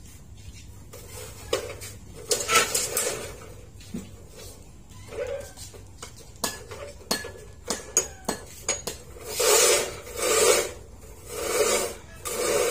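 Steel rebar scraping and clinking against the metal clamp vise of a cut-off saw as the bars are slid through and the vise is worked: scattered sharp metal clicks, with several longer scrapes, three of them close together near the end.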